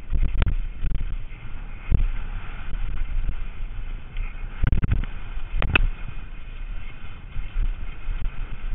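Downhill mountain bike rattling at speed over a rocky trail, a steady rumble with wind buffeting the microphone. Sharp knocks from the wheels and suspension striking rocks, one about two seconds in and two close together a little past the middle.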